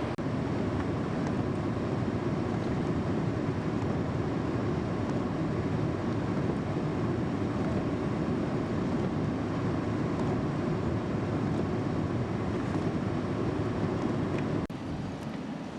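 Steady low rumble of a car driving on a snowy road, heard from inside the vehicle. The sound drops and changes abruptly near the end.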